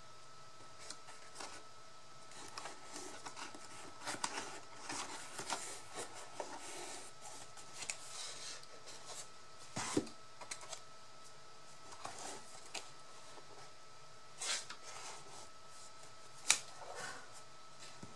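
Scattered light clicks and short rustles of paper and craft pieces being handled and worked by hand, with one sharper click near the end.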